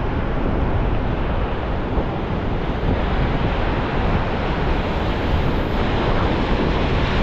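Heavy surf and strong wind buffeting the microphone: a steady, unbroken rush of noise, heaviest in the low end.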